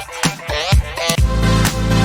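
Electronic dance music with a steady beat; a heavy bass line comes in a little past halfway.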